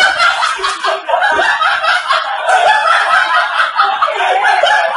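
A group of people laughing hard together, several voices overlapping without a break.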